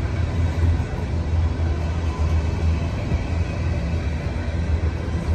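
Freight train of tank cars rolling past at close range: a steady low rumble of wheels on the rails.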